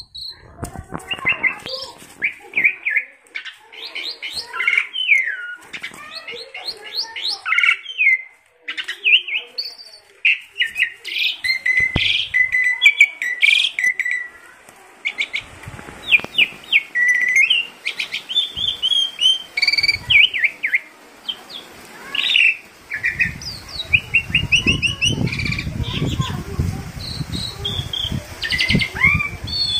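Asian pied starling singing and chattering: a busy run of loud whistles, chirps and gliding notes with few pauses. A low rumble joins in the last several seconds.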